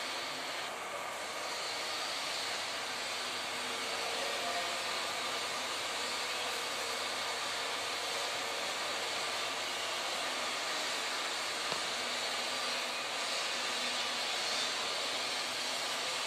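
Steady rushing background noise of a large industrial workshop hall, with faint steady machine hums underneath and no single event standing out.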